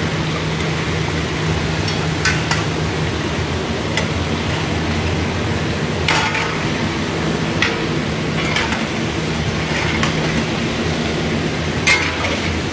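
Chicken deep-frying in large woks of hot oil: a steady sizzle over a low rumble, with a few sharp metal clinks of a slotted spoon against the wok.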